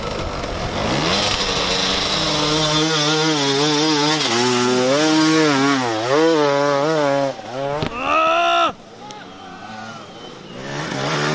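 Enduro dirt bike engines revving hard and unevenly under load on a steep climb over logs. The pitch wavers up and down, then rises sharply about 8 seconds in before the sound drops away briefly and builds again near the end.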